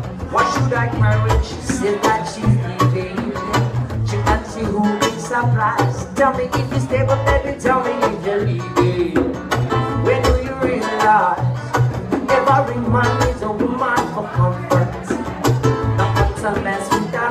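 Live acoustic music: an acoustic guitar and a hand drum played together, with a man singing into a microphone over them.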